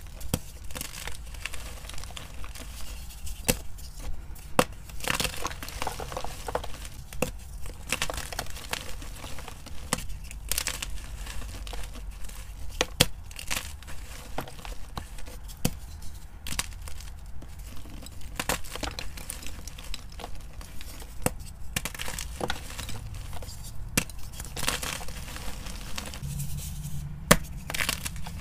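Blocks of gym chalk crushed and crumbled between the fingers: irregular dry crunching and crackling, with sharp snaps as chunks break off.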